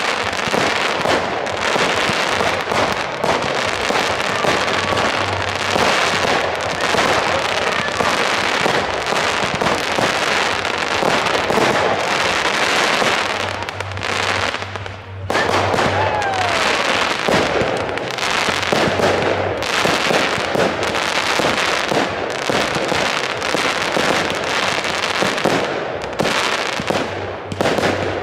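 Firework batteries firing in quick succession: a dense, continuous run of bangs and crackling stars, with a brief lull about halfway through.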